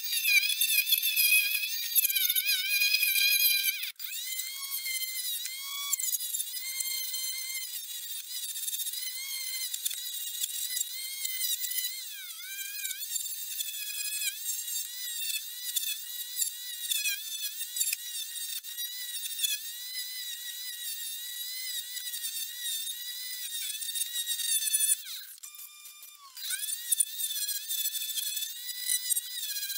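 Homemade wood lathe, driven by a washing machine's commutator motor through a speed regulator, running with a high whine whose pitch wavers and dips as a chisel and file cut the spinning wood. The sound drops sharply about four seconds in and goes quieter for a moment near the end.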